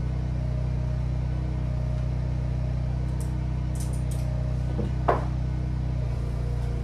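Steady low hum of a home backup generator's engine running during a power outage. A few faint clicks come from a supplement bottle about three to four seconds in, and a short knock comes about five seconds in.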